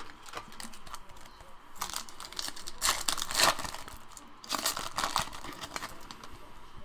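A wrapper on a pack of trading cards being torn open and crinkled by hand, in irregular crackly bursts; the two strongest come about two to three and a half seconds in and again about four and a half seconds in.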